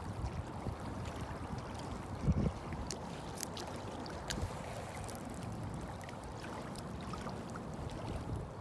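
Steady low wash of water and wind around a fishing boat, with a brief low thump about two and a half seconds in and a few faint clicks shortly after.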